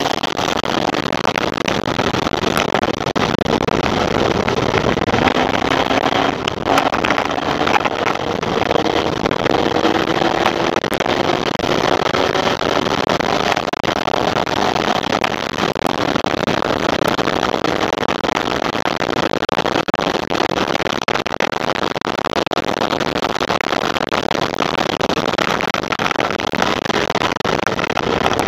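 Formula Vee race car's air-cooled Volkswagen flat-four engine running hard, recorded on board, with a steady rush of wind over it. The engine note climbs slowly several seconds in as the car accelerates.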